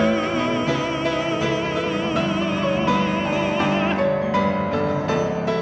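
A male singer holds a long, wavering vibrato note on the last word "you" over piano accompaniment. The voice ends about four seconds in, and the piano plays on alone.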